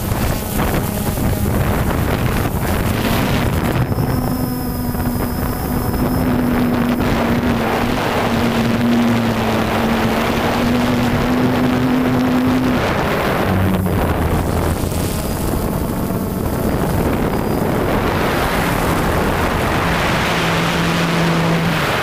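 DJI Phantom 2 quadcopter's motors and propellers whining, heard from the GoPro mounted on the drone, with wind buffeting the microphone. The motor pitch steps up about four seconds in as the drone climbs, and drops lower around thirteen seconds in.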